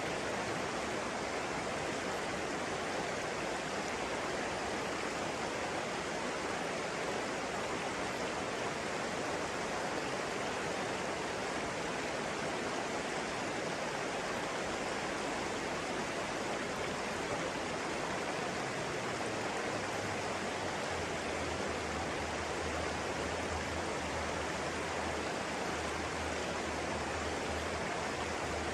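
Flowing water rushing steadily, like a stream or small waterfall. A low hum joins in about two-thirds of the way through.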